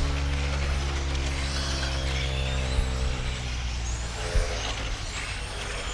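Electric RC touring cars racing, their motors whining and gliding up and down in pitch as they accelerate and brake around the track. Under them runs a steady low hum that fades out about three and a half seconds in, and there is a single knock near the end.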